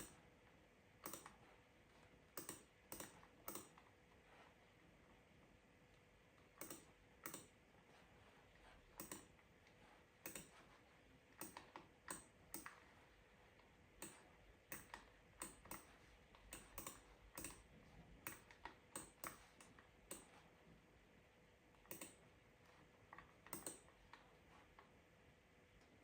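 Quiet, scattered keystrokes on a computer keyboard, single taps and short runs at an uneven pace with pauses between. A faint steady hum lies underneath.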